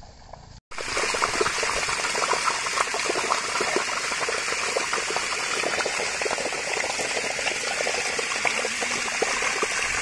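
Water gushing from the mouth of a large irrigation pipe and splashing onto the wet ground: a steady, loud rushing and splashing that starts suddenly under a second in.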